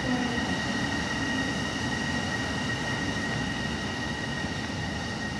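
Port Liner rubber-tyred automated guideway train running along its elevated guideway: a steady rumble with a steady high whine above it.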